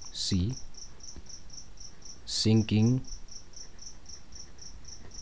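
Steady high-pitched chirping repeated about four times a second, like a cricket, with two short bits of voice, one near the start and one about halfway.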